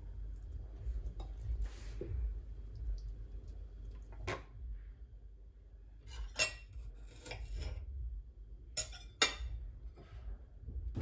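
A metal table knife clinking and scraping against a plate as food is arranged on it by hand: a handful of separate clinks, most of them in the second half, over a low steady hum.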